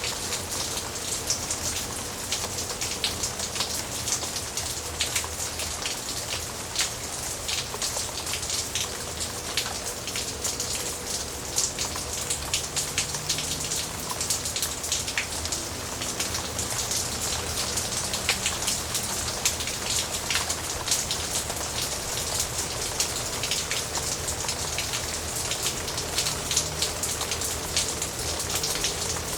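Steady rain falling, a dense patter of many individual drops striking a surface, without thunder.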